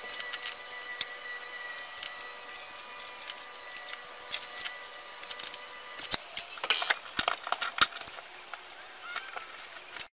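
Ceiling fan parts being handled and fitted together: irregular clicks, taps and light rattles of metal and plastic pieces, with a cluster of louder knocks about seven seconds in. A steady faint hum runs underneath, and the sound cuts off suddenly near the end.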